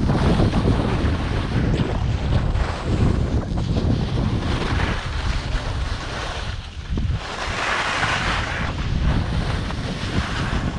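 Wind buffeting the camera microphone while skiing downhill: a steady rushing noise with a heavy low rumble. It dips briefly a little past halfway, then comes back with a stronger hiss.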